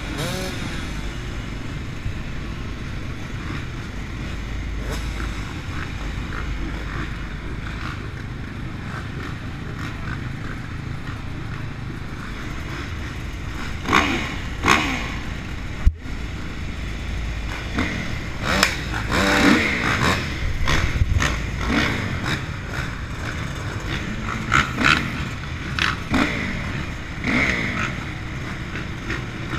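Several motocross bike engines running at idle, with repeated throttle blips rising and falling in pitch from about halfway through as bikes pass close by. There is one sharp knock about halfway through.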